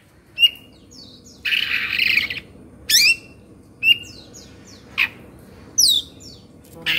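Oriental magpie-robin (kacer) singing in short, separate phrases of sharp sweeping whistles, with a harsh rasping phrase about a second and a half in. The agitated, fired-up song of a kacer in 'emosi' (kongslet) mode.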